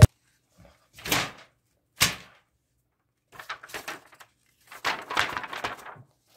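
A4 paper handled and opened out by hand: crisp rustling and crackling, with a sharper snap of the paper about two seconds in, the loudest sound here.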